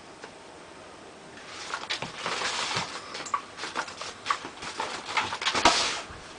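A kitten playing with a toy: scuffling and rustling with many quick taps and clicks, starting about a second and a half in and loudest near the end.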